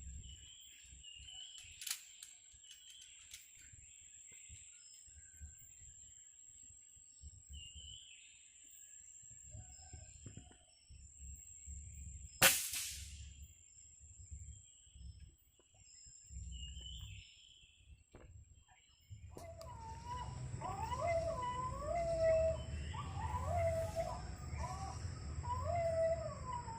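Small birds chirping faintly over a steady high-pitched whine, then a single sharp shot about halfway through. A few seconds later a series of wavering, pitched animal calls starts and repeats about once a second: the strange sound that turned up during the bird shooting.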